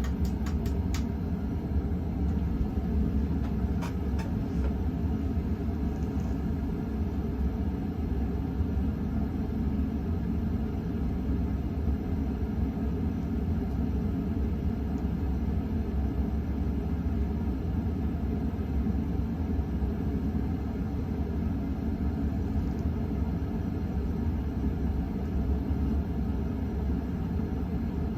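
52-inch KDK Royalaire ceiling fan running on high speed, a steady low hum and rumble, with a few light clicks right at the start.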